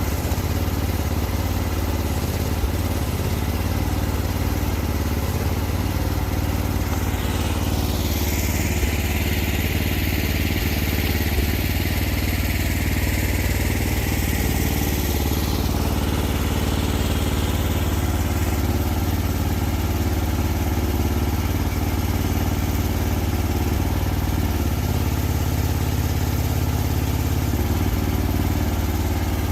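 Small diesel engine of a compact earth-moving machine running steadily at a constant speed. For several seconds, about a third of the way in, a higher hiss rises over the engine and then fades.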